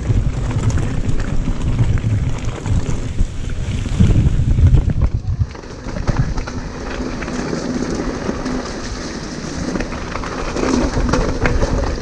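Wind rumbling over an action camera's microphone as a hardtail mountain bike rolls down a gravel trail and then dirt singletrack, with tyre crunch and the rattle of the bike over the rough ground. There is a brief lull about five and a half seconds in.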